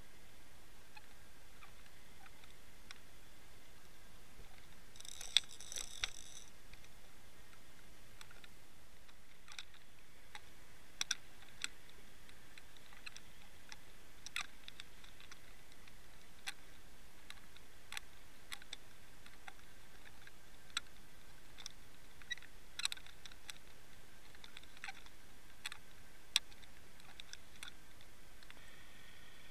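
Steady hiss of water heard through a towed underwater camera's housing, with scattered sharp clicks and ticks, a quick cluster of them about five to six seconds in.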